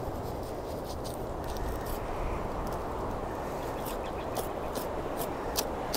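Knife skinning a hanging hog carcass: a run of short, crisp slicing ticks in the second half, about two a second, over a steady rushing background noise.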